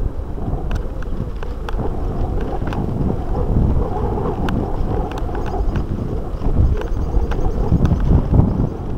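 Wind buffeting the microphone over the rumble of a mountain bike rolling along a rough dirt track, with scattered sharp clicks and rattles.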